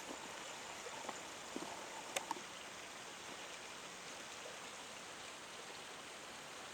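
A creek running steadily below, heard as a soft, even rush of water. There are a few faint clicks in the first couple of seconds.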